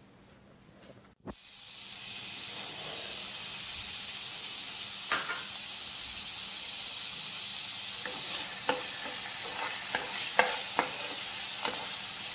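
Chopped onions frying in hot oil in a non-stick pan. A steady sizzle starts suddenly about a second in after near quiet. From about two-thirds of the way through, a spatula stirring the onions adds scrapes and knocks against the pan.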